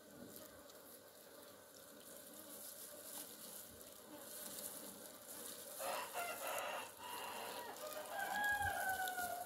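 A rooster crowing in the second half, ending in a long held note that falls slightly, over the faint hum of honeybees at an open hive.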